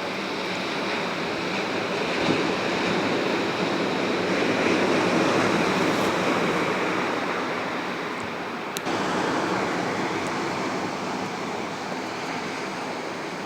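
Atlantic surf washing onto the beach, a steady rushing wash that swells about four to six seconds in and then eases. A brief click near nine seconds in.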